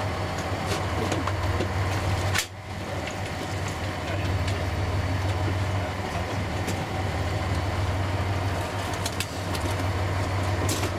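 Fishing boat's engine running steadily, a constant low hum under a wash of noise, with a few light clicks. A sharp click about two and a half seconds in is followed by a brief dip in the sound.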